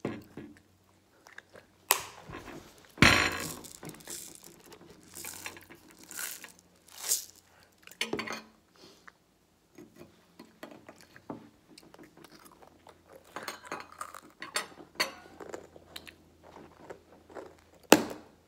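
Metal forks clinking and scraping on ceramic plates, with chewing close to the microphone. A few sharper knocks stand out, the loudest about three seconds in and another near the end.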